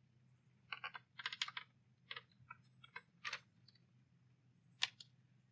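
Light plastic clicks and taps as a plastic roof-edge light clip is flipped and snapped on over an LED light string's wire. They come in small clusters over the first three and a half seconds, with one more click near the end.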